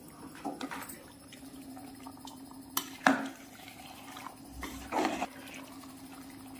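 A metal ladle stirring chicken pieces through yogurt and masala in a pressure cooker: wet squelching and sloshing, with a few scrapes and knocks against the pot near three and five seconds in. A steady low hum runs underneath.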